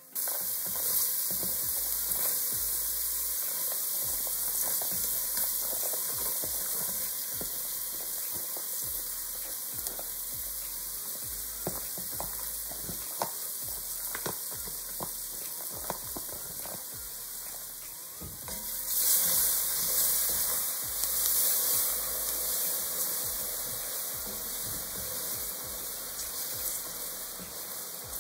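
Chopped onion and bell pepper sizzling in a hot dark roux in a cast-iron Dutch oven as they are added and stirred in, with scattered light clicks. The sizzle swells louder about two-thirds of the way through.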